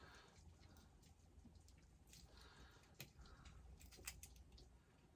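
Near silence: room tone with a few faint clicks and a brief rustle, small handling noises.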